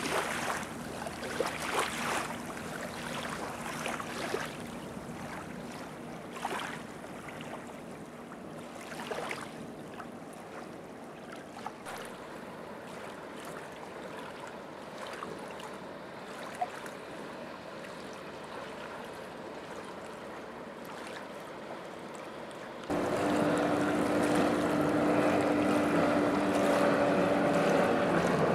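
Water lapping gently on a stony shore in small irregular splashes, then about 23 seconds in a boat engine's steady drone sets in, much louder, its pitch starting to fall near the end.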